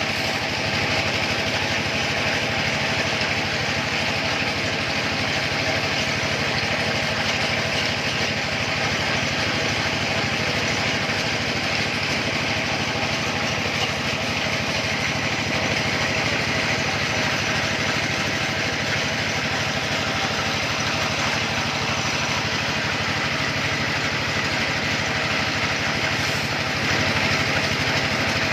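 Small engine powering a well-drilling rig, running steadily at an even speed.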